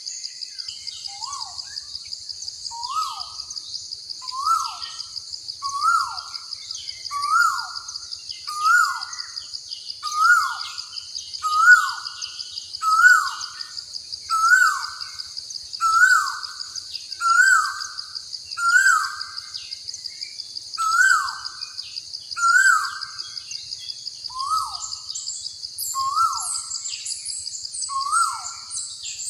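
Birdsong ambience: one bird repeats a short whistled call that falls in pitch, about every one and a half seconds, over a steady high-pitched trill. Other birds chirp high above it, with a quick run of chirps near the end.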